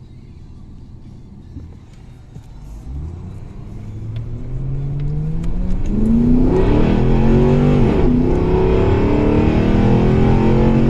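Ford BF Falcon XR8's 5.4-litre Boss V8, running with its air filter removed, accelerating hard under load. Its note climbs steadily in pitch and grows loud, then drops briefly at a gearchange about two-thirds of the way through and carries on strongly.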